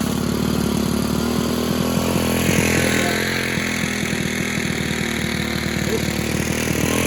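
Stihl KM110R's small 4-MIX trimmer engine running steadily on a freshly fitted ignition coil. It does not rev up because its throttle cable has slipped off.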